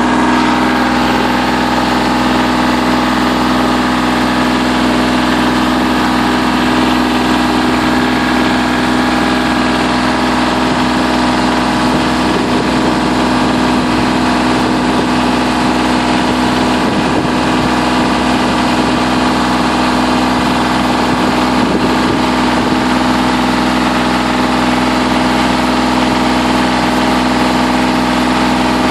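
Kubota L2800 tractor's three-cylinder diesel engine running loud and steady at a constant speed, heard from the operator's seat.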